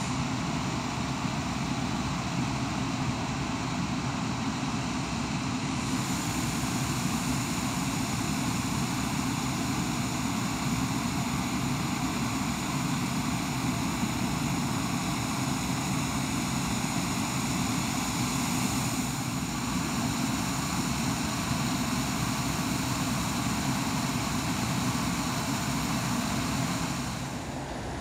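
Aircraft engine noise, a steady drone that holds level and then drops a little near the end.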